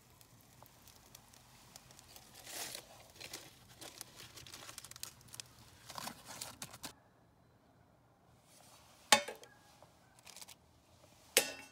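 Aluminium foil packet crinkling and rustling as it is handled and lifted out of the campfire embers. Then two sharp metallic clanks on a metal plate, a couple of seconds apart, each with a brief ring.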